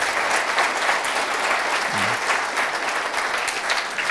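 Audience applauding: dense, steady clapping from a roomful of people.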